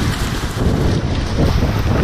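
Whitewater rushing around a kayak on a river in high flow, with paddle strokes splashing and wind buffeting the microphone in a low rumble.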